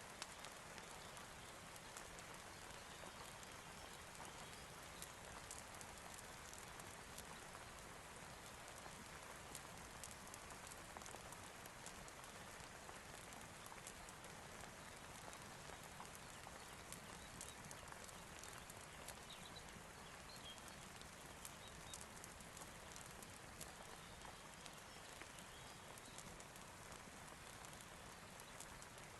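Soft, steady rain mixed with a fireplace crackling: an even hiss dotted with many small ticks and pops.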